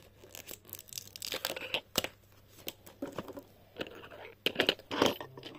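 Stickers being peeled from their paper backing sheet and handled: irregular paper crinkling and tearing with scattered small clicks, louder rustles near the end.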